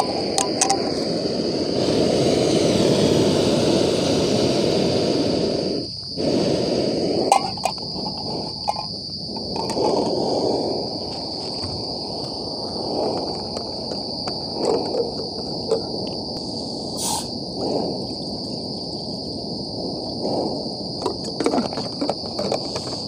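Portable canister gas stove burning with a steady hiss, under a steady high chirring of crickets. Several short knocks of cookware and a water bottle being handled on and around the stove.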